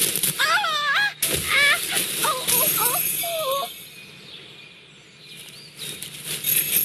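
A cartoon mouse's high-pitched, wavering squeaks in four short runs over the first few seconds as she strains for the bluebell. Then it goes quieter, and a rush of noise swells near the end.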